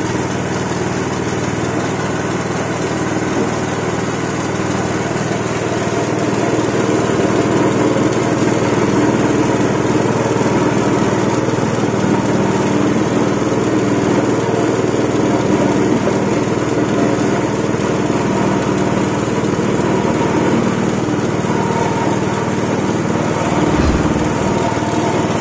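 Motor-driven ginger and turmeric pressing machine running steadily, a constant mechanical hum that grows a little louder a few seconds in.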